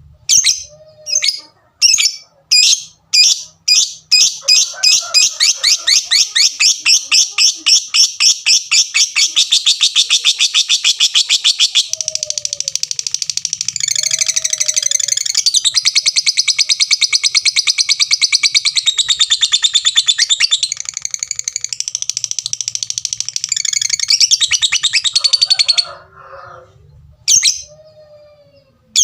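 Lovebird's 'fighter' call: separate sharp ticks that speed up into a rapid ticking series, then run into long, continuous shrill chattering (ngekek). The chatter stops abruptly near the end and is followed by a few single calls.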